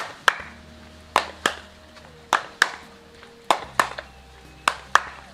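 Handclaps in a steady rhythm, struck in pairs about a third of a second apart, one pair roughly every second, as two people clap while jumping in a dance game.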